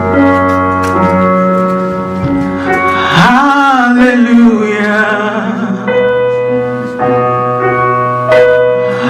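Gospel worship music: sustained keyboard chords, joined about three seconds in by a voice singing long held notes that swoop up into pitch.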